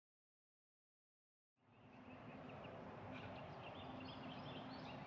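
Dead silence for about a second and a half, then outdoor ambience fades in: small birds chirping in short calls over a low, steady hum.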